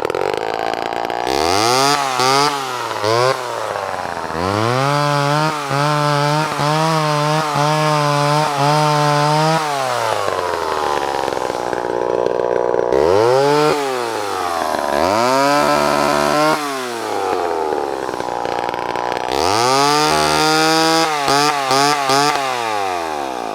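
Homelite XL-12 two-stroke chainsaw running, revved repeatedly up to high speed and let fall back toward idle, with one longer stretch held at high revs.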